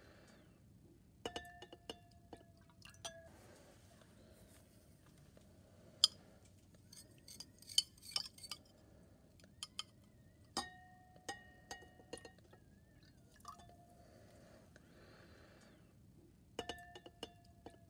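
Glass stirring rod clinking and scraping against glass beakers, in scattered clusters of light clinks, several of them leaving a short ringing tone.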